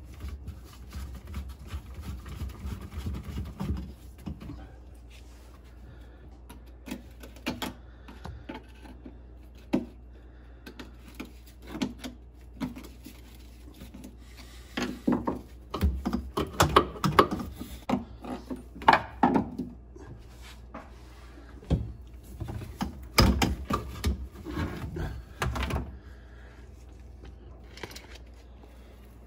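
Irregular clicks, knocks and rubbing from working on a boat's live well plumbing: a screwdriver loosening hose clamps and rubber hoses being pulled and shifted around a T fitting. The handling noises are sparse at first and come thickest in the second half.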